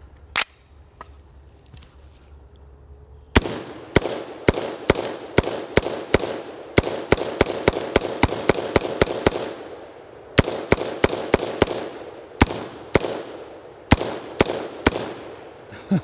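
BCM AR-15 rifle in 5.56 firing semi-automatic: one shot near the start, then after a pause a long string of quick shots, about two or three a second, with a short break about two-thirds of the way through. Each shot cracks and trails off in echo. The rifle is firing uncleaned and without lubricant.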